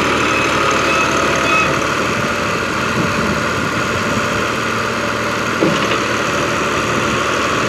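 Al-Ghazi 65 hp tractor's diesel engine running steadily as the tractor, bogged in mud, tries to drive out.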